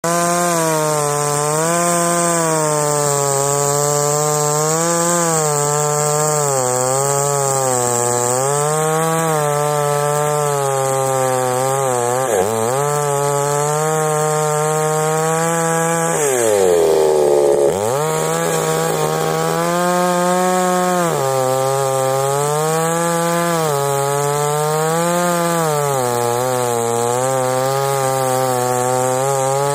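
Two-stroke gasoline chainsaw at full throttle, ripping lengthwise through a log; the engine's pitch rises and falls as the chain loads and unloads in the cut. About halfway through, the engine bogs down deeply under load, then climbs back to speed.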